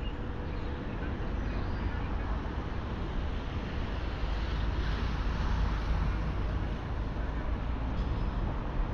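Street traffic noise: a steady low rumble of road traffic, swelling as a vehicle goes by about halfway through.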